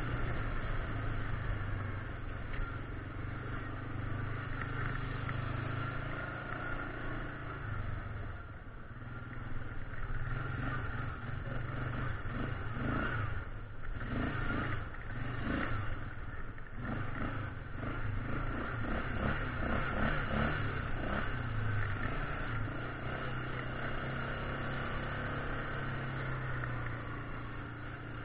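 Yamaha Grizzly 600 ATV's single-cylinder engine running steadily on a rough gravel trail. About halfway through there are several seconds of clattering and knocking as the machine crosses rocks and a muddy, waterlogged patch.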